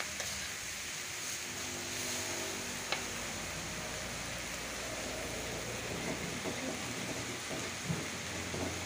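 Vegetables sizzling in a wok over a gas burner, a steady frying hiss, with a couple of light clicks.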